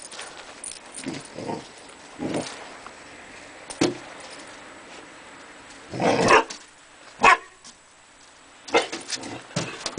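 Curly Coated Retriever puppy giving a string of short, separate barks and yips, loudest about two thirds of the way through, at its own reflection in a glass door.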